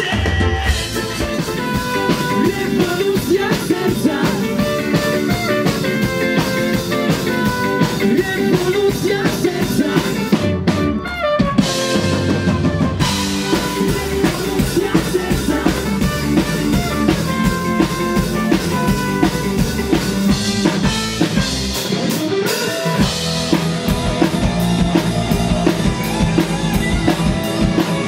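Band music from a drum kit, bass and electric guitars playing a steady beat, with a short break in the drums and bass about 11 seconds in and again near 23 seconds.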